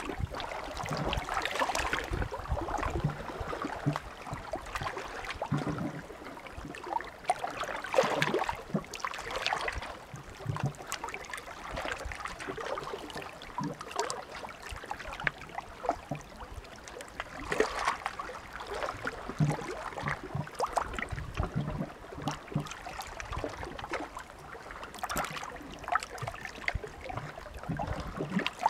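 Small sea waves lapping and splashing at the shore, a continuous wash with fine crackling, swelling louder every several seconds, most strongly about eight seconds in.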